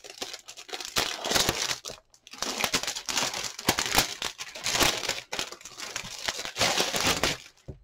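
Packaging being torn open and crinkled by hand, a dense crackling rustle in several stretches with a brief pause about two seconds in.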